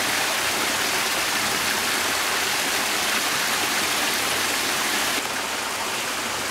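Fresh drinking water running steadily at a water-collection point, an even rushing splash that gets slightly quieter about five seconds in.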